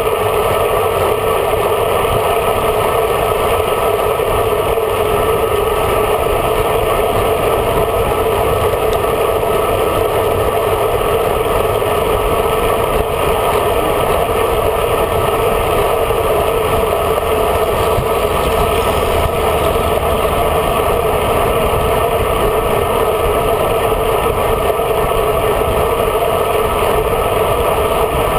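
Steady rush of wind over a bike-mounted camera's microphone, with tyre noise on asphalt, from a road bike riding at speed.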